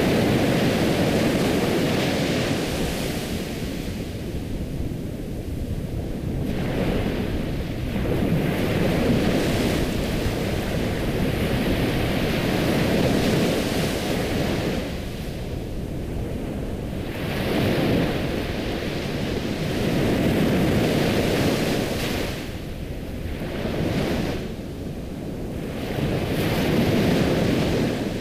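Ocean surf: waves breaking and washing on a shore, a continuous rushing that swells and eases every few seconds.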